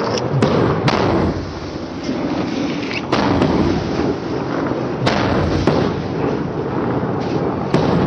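Consumer fireworks going off: a steady crackling hiss broken by sharp bangs every second or two.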